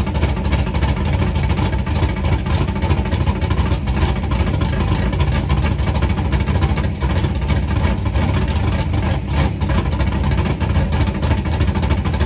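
1968 Chevelle drag car's V8 idling steadily, heard from beneath the front of the car, running after its first start in years of sitting.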